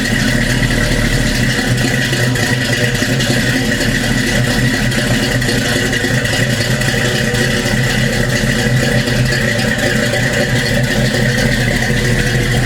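Bone-stock 283 small-block Chevy V8 idling steadily while still cold from a cold start, with the throttle untouched. It runs through long-tube headers and dual 2.25-inch exhaust with Flowmaster 40 series mufflers and turn-downs.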